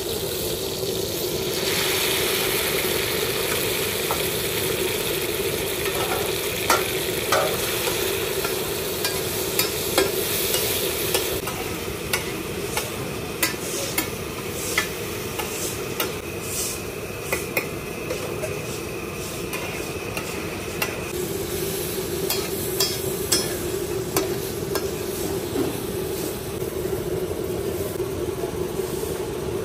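Oil sizzling on a large flat iron tawa as mutton liver fries, with a metal spatula repeatedly scraping and clacking against the hot plate.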